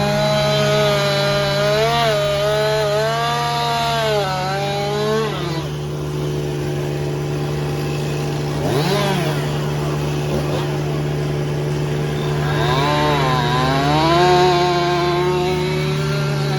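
Chainsaw cutting branches, its engine pitch sagging as it bites into the wood and climbing again as it frees up, with a quick rev near the middle, over a steady low hum.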